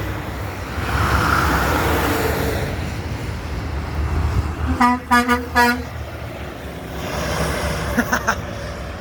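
A truck's horn gives three quick short honks about five seconds in, over the rumble and rush of passing road traffic.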